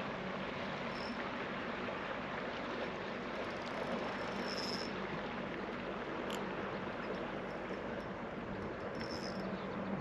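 Steady outdoor noise, like wind and lapping water, with a faint low hum under it; a few short high chirps and one sharp click break through.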